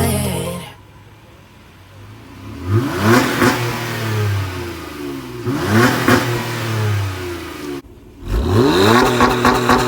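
A Honda Accord's 3.5-litre V6 revved three times from idle, each rev climbing in pitch and falling back. The tail of intro music fades out in the first second.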